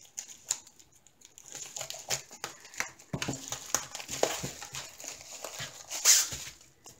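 Plastic packaging crinkling and rustling as hands unwrap a plastic mailer and a clear plastic-wrapped roll. The crackles are irregular, sparse at first and busier after a second or so, with a louder rustle about six seconds in.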